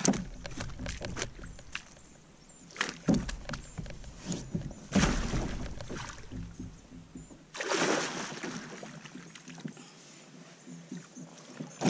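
Water splashing beside a kayak in several bursts, the longest in the second half, as a freshly landed bowfin thrashes in the landing net; scattered light knocks and clicks come between the splashes.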